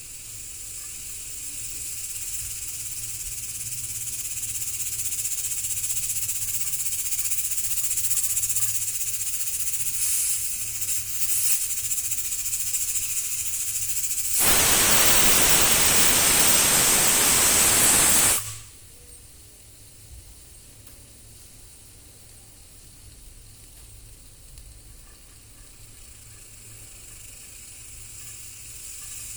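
Pressure cooker venting steam through its whistle: a steady hiss builds, then a loud rush of steam for about four seconds, with no whistle tone, cuts off sharply. A fainter hiss follows and rises again near the end. This fits the whistle sound problem, where the cooker hisses instead of whistling.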